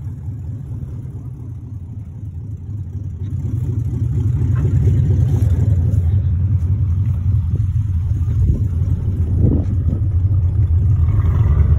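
Lifted Suburban's engine idling, a steady low rumble that grows louder about four seconds in as the microphone nears the truck.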